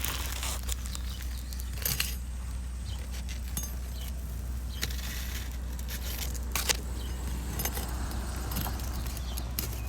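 Irregular metallic clinks and scrapes of a roof snake being worked under roof shingles to pull out a roofing nail, over a steady low rumble.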